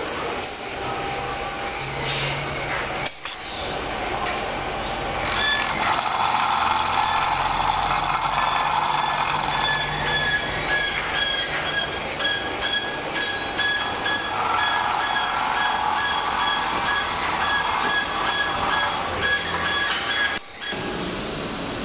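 Matteuzzi truck-tyre buffing machine spinning a tyre while its rasp grinds the old tread: a steady grinding hiss that grows louder about five seconds in, with a faint high whine over it.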